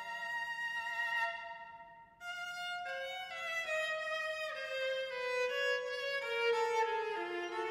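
Solo viola bowing slow, held notes: a sustained note fades out about two seconds in, then a new phrase of notes moving step by step, with a short downward slide about halfway.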